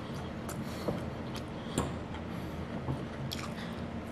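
A person eating chicken and rice: chewing and mouth sounds, with a few light clicks scattered through, over a steady low hum.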